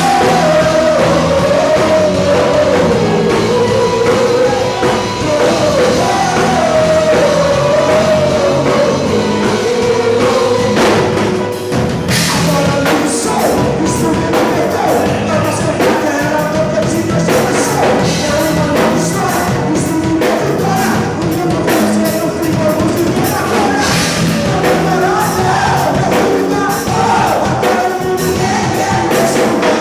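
Live worship band playing a song with singing over drums and electric instruments, in a rock style.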